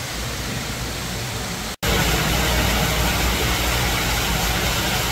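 Steady, loud rushing noise with no distinct tones or voices; it drops out for an instant just under two seconds in and comes back louder.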